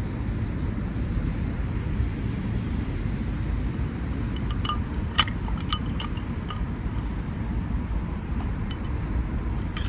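Metal spoon stirring iced coffee in a glass: a quick run of clinks of spoon and ice against the glass, mostly between about four and six and a half seconds in. Under it runs a steady low rumble.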